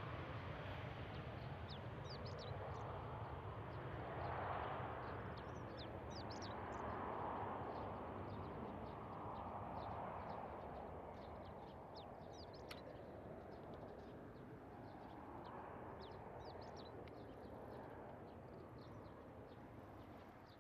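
Jet engine noise of an Airbus A320-200 climbing away after takeoff: a broad, distant rumble that swells and ebbs in slow waves and slowly fades as the airliner recedes. Small birds chirp over it throughout.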